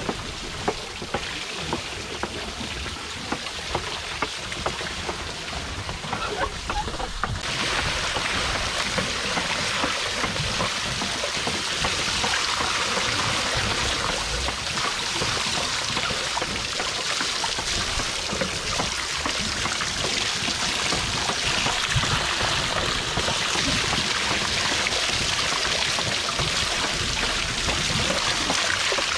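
Water from the clay pots of a bullock-driven Persian wheel pouring and splashing into a wooden trough, a steady rushing splash. It grows fuller and brighter about seven seconds in. There are a few sharp knocks in the first several seconds.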